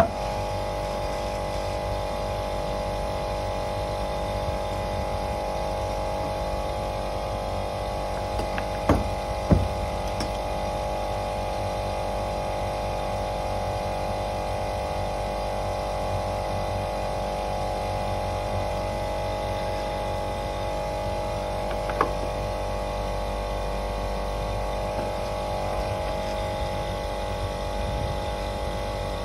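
Old R22 air conditioning system running steadily, giving an even mechanical hum made of several fixed tones. Two short knocks come about nine seconds in, and one more a little past twenty seconds.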